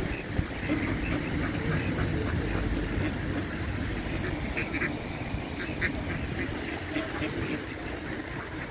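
Mallard ducks quacking on the water, many short quacks in loose clusters, busiest around the middle, over a low rumble that eases after the first few seconds.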